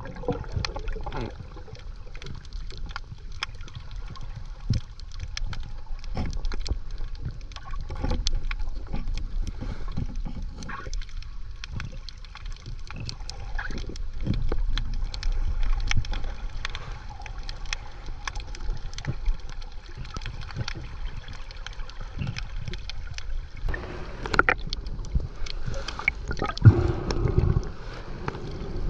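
Water sloshing and gurgling close to the microphone, with many scattered small knocks and clicks. There are louder splashes about 24 and 27 seconds in.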